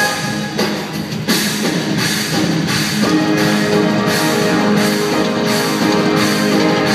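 Live circus band music with drums, played loud through the arena; it steps up in loudness a little over a second in.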